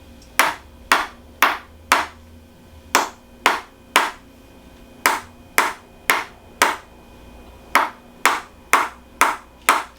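Sharp strikes from a chiropractic adjustment of the lower back, about two a second, in runs of three to five with short pauses between.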